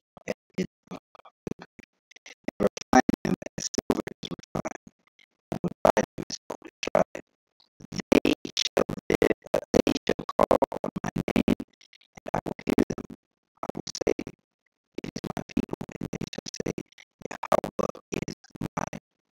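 Music with plucked strings, playing in choppy stretches that cut out into brief silences several times.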